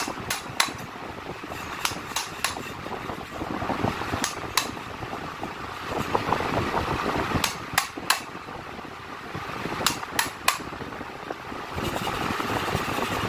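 Sharp knocks and clicks at irregular intervals, often two close together, as a steel punch is worked into a board to bore a hole, over a steady background noise.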